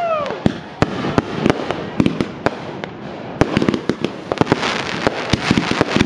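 Aerial fireworks display: a rapid, irregular run of sharp bangs from shells bursting, several a second. A whistle falls away just at the start, and a dense burst of crackling comes about four and a half seconds in.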